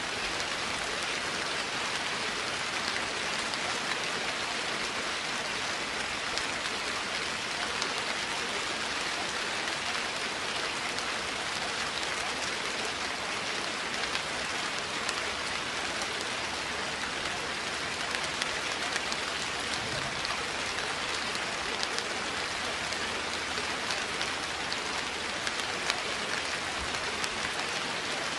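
Steady, even rain: a dense hiss with many fine drop ticks scattered through it, unchanging throughout.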